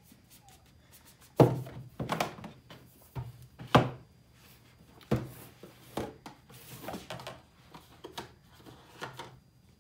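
A rigid cardboard gift box being handled on a wooden table and its hinged lid opened: a series of thunks, taps and cardboard rubbing. The two loudest knocks come about one and a half and four seconds in.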